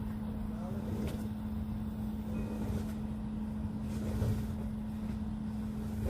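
A vehicle's engine idling, a steady hum with one constant tone over a low rumble.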